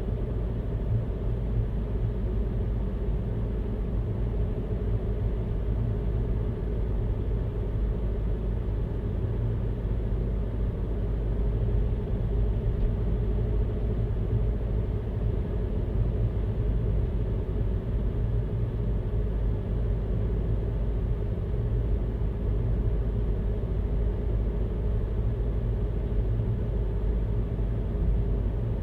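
Steady low rumble of a car driving along a road, engine and tyre noise running evenly without change.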